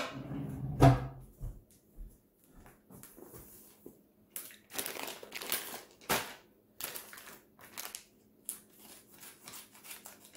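A plastic food package being handled and cut open: crinkling and crackling of the plastic, with a thump about a second in.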